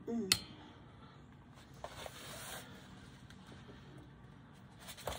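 Faint rustling and crinkling of a diamond painting canvas and its clear plastic cover film as it is handled and propped up, with a sharp click about a third of a second in and another light click near the end.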